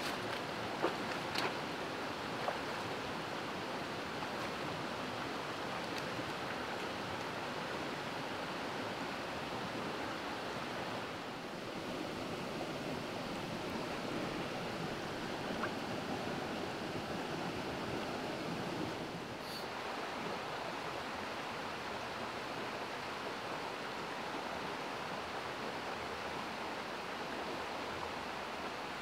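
Shallow rocky stream running over boulders and riffles: a steady rush of flowing water, with a few light clicks in the first few seconds.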